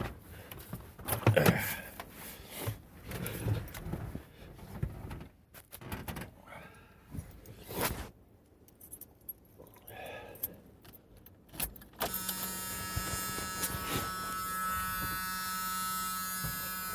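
Keys jangling with scattered clicks and rustling handling noise, then about twelve seconds in a steady electrical buzz comes on and holds as power reaches the ramp truck from its newly connected battery.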